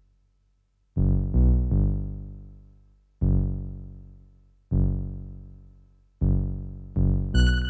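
Modular synthesizer music: a sparse run of seven low pitched notes, each struck with a sharp attack and a long fading decay, the first about a second in. Near the end a bright, high bell-like ping rings over one of the notes.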